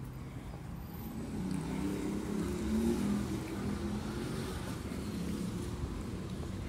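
A car passing on the street, loudest about three seconds in, over a steady low rumble of city traffic.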